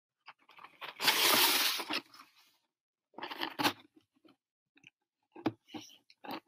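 A crackly rustle lasting about a second, then a few short bursts of small clicks and taps: handling noise close to the microphone.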